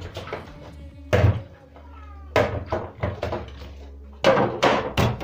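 Hard plastic fridge compartments knocking and clattering as they are handled and washed: about six sharp knocks, with a few short squeaky glides.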